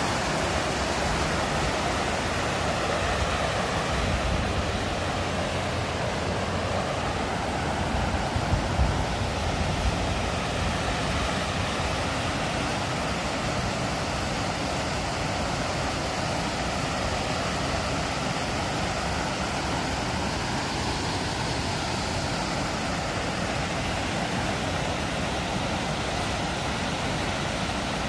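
Water pouring over a small concrete dam spillway into the channel below, a steady rushing. A few brief low bumps come about four and nine seconds in.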